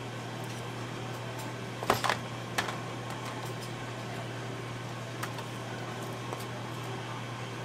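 Steady low mechanical hum of kitchen equipment, with a few sharp clicks about two seconds in and fainter ticks later on.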